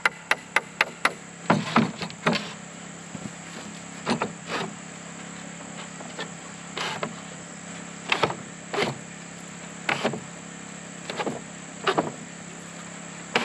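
One-handed bar clamp being squeezed tight, its trigger clicking rapidly about six times, then scattered knocks of wooden pallet boards being pushed and shifted against each other, often in pairs. A steady high insect drone runs underneath.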